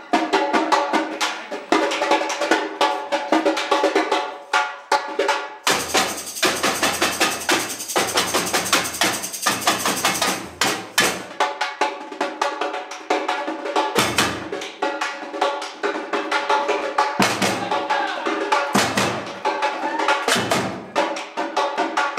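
Samba percussion group (batucada) playing live: big surdo bass drums and snare-type drums keep a fast, dense rhythm.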